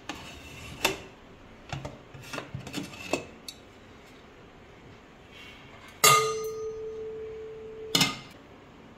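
Metal pressure cooker lid being worked loose and lifted off, with a series of sharp clicks and clinks. About six seconds in comes a loud metallic clang whose ring holds one steady tone for about two seconds, cut off by a second clank.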